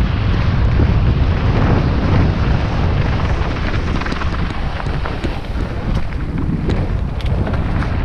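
Wind buffeting an action camera's microphone during a fast mountain-bike descent on a dirt singletrack, with tyre rumble underneath. A few sharp clicks and rattles come about six to seven and a half seconds in.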